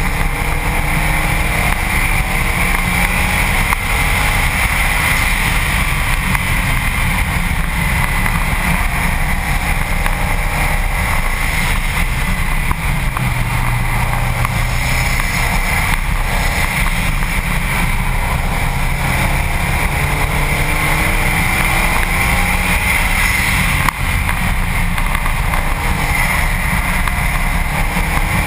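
Heavy wind and road rush on a camera mounted low on the front bumper of a Subaru WRX STi at track speed, with the car's turbocharged flat-four engine heard faintly beneath it, its note climbing several times as it accelerates through the gears.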